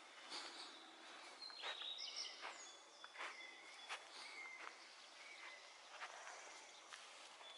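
Faint footsteps on the forest floor, soft irregular steps about one every second or less, with a few short steady-pitched bird calls now and then.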